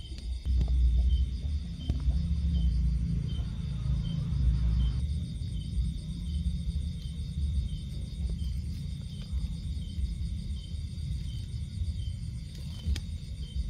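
Night insects calling: steady high trills with a short chirp repeating about two or three times a second. Under them runs a low rumble, heavier in the first five seconds.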